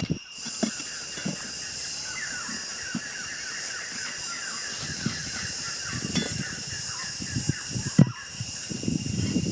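A bird calling over and over in short falling chirps, about three a second, over a steady high insect-like hiss, with scattered low knocks and one sharp knock near the end.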